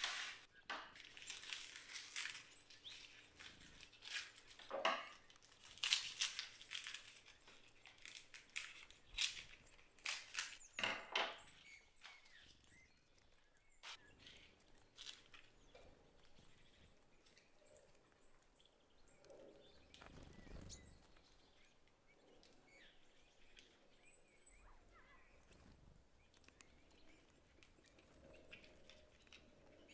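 Plastic wrapping and packing tape crinkling and rustling as plant cuttings are handled and unwrapped. Frequent crackly rustles through the first dozen seconds, then only faint, occasional ones.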